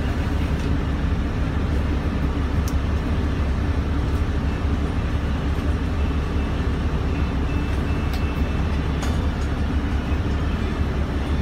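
A coach bus's engine running, a steady low drone heard inside the passenger cabin, with a few faint clicks.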